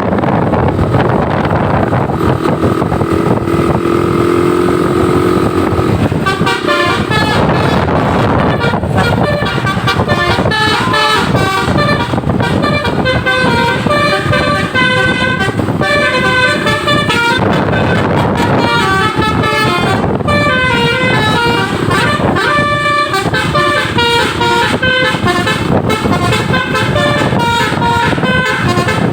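A bus's Basuri telolet horn playing a melody of quickly changing multi-tone notes, starting about six seconds in and continuing to the end, over steady traffic noise.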